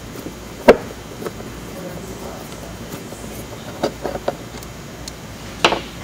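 Sharp clicks and knocks of hands working on the underside of a rugged laptop case while its screws are taken out. The loudest click is about a second in, with a few more later on.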